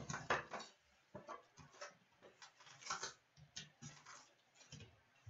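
A trading card box being unwrapped and opened by hand: crinkling plastic wrap and cardboard flaps being pulled open, in faint, scattered short rustles and taps.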